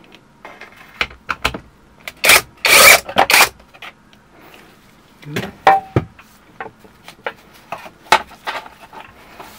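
Cordless drill-driver running in a few short bursts, backing a screw out of the scooter deck's underside, about two to three seconds in. Around these, scattered clicks and knocks of the screw, tool and deck being handled.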